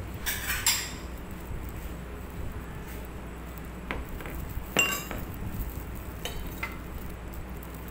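Small glass bowls being set down on a hard tabletop, giving several separate sharp clinks with a short ring; the loudest comes a little past the middle.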